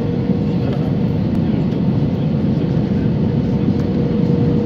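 Airbus A320 cabin noise on final approach, a steady roar of airflow and engines heard through the fuselage, with a steady hum-like tone running through it.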